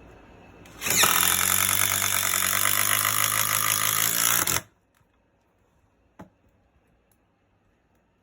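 Impact driver running under load for nearly four seconds, its motor whining under a rapid, even hammering as it drives a bolt in, then stopping abruptly. A single light click follows a moment later.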